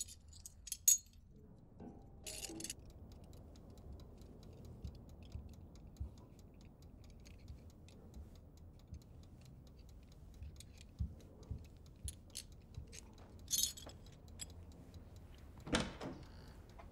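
A clock ticking steadily in a quiet room. In the first few seconds there are a few sharp clinks of broken porcelain shards being picked up off a wooden floor, and near the end there is one short soft thump.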